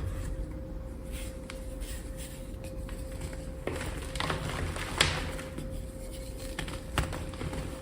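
Blocks of gym chalk being crushed and crumbled, with irregular crunches and crackles and a few sharper cracks, the loudest about five seconds in, over a steady hum.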